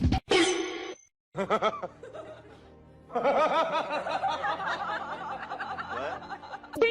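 Laughter, with music underneath, following a short cut to silence about a second in.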